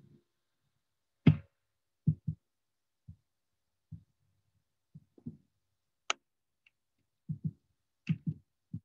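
A series of irregular soft thumps, several in quick pairs, with three sharper clicks among them, the loudest about a second in. Between them there is silence.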